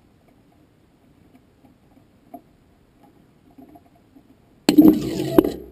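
Faint, irregular small ticks and clicks picked up by the onboard camera on a spinning rocket stage high in the atmosphere. About 4.7 s in, a sudden loud burst of noise lasts about a second and then fades.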